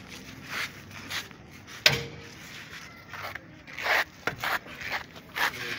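Metal scrapes and clinks as a long steel bar and socket are worked in a truck's wheel hub, with one sharp metallic clink about two seconds in.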